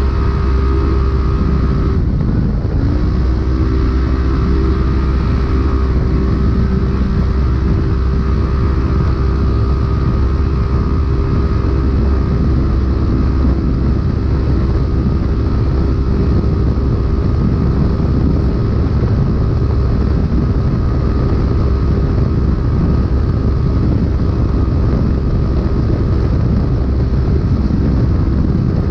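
Polaris RZR UTV engine running hard at full race pace, heard from inside the car over a heavy low rumble. About two seconds in the engine note drops briefly as the throttle comes off, then climbs back and holds steady at high revs.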